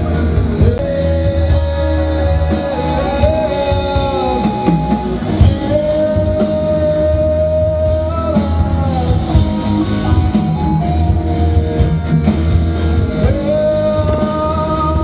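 Rock band playing, with a singer holding long notes over guitar, bass and drums.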